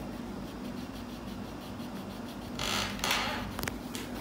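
Coloured pencil rubbing on a colouring book page over a steady low room hum, with a louder scratchy stretch of about half a second past the middle and a couple of light taps after it.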